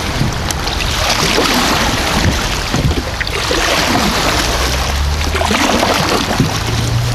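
Kayak being paddled up a shallow creek riffle: water rushing and splashing around the hull and paddle, with scattered short splashes from the strokes.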